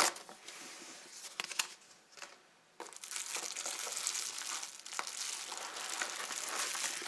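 Plastic and cardboard packaging being handled. A few sharp clicks and rustles come first, then a short lull, then steady crinkling of plastic wrap from about three seconds in.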